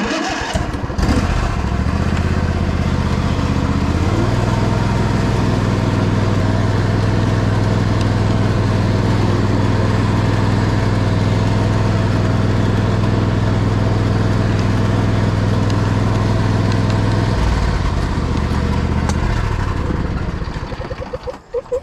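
Small engine of an almost 20-year-old John Deere lawn tractor running steadily while it is driven. It speeds up about four seconds in, slows again near the end, and winds down.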